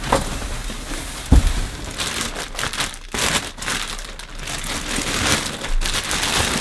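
Clear plastic packaging bag crinkling and rustling as it is handled around a boxed canister vacuum cleaner and pulled open. One dull thump about a second and a half in, as the machine is set down.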